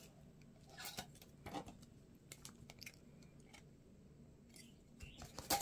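Faint, scattered light clicks and taps of a small acrylic case and its plastic packaging being handled, with a sharper click near the end.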